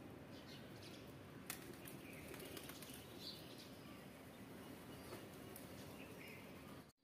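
Rock pigeons flapping their wings, faint over a steady background hiss, with one sharp tap about a second and a half in.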